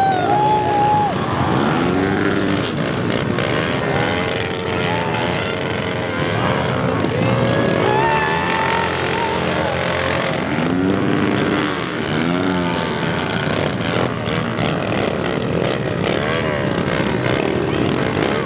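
Several pit bike engines running together, repeatedly revving up and dropping back so that their pitches rise and fall over one another, as the bikes idle in line and pull away.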